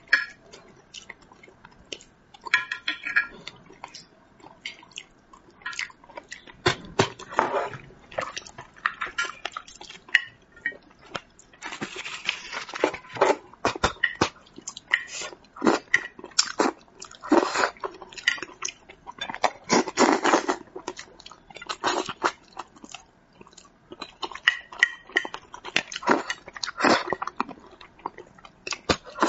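Close-up eating sounds of someone eating spicy braised carp: irregular wet chewing and lip smacks, with chopsticks picking at the fish in a glass dish.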